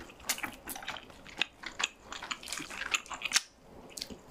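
Close-up chewing of sauce-glazed fried chicken: wet, sticky mouth smacks and clicks at an irregular pace.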